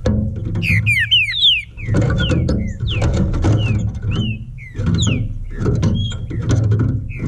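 Green-winged saltator (trinca-ferro) singing short slurred whistled notes, a quick run of them about a second in and then single notes about once a second, over loud low-pitched background sound.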